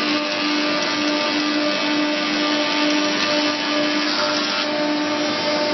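Four-sided moulder planer running steadily: its electric motors and spinning cutter heads give a constant hum with a steady whine over a dense rushing noise.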